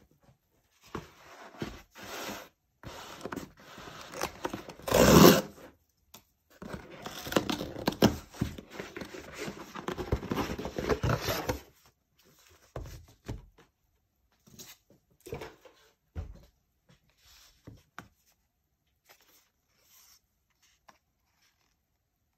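Phone packaging being torn open and handled: tearing and rustling of wrapping with scraping of the box, loudest in a sharp burst about five seconds in, then a long stretch of rustling, then scattered light taps and clicks.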